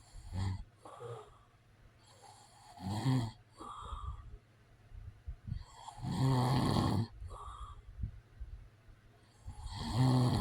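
A man snoring: four snores about three to three and a half seconds apart, each followed by a softer breath. The snore about six seconds in is the longest.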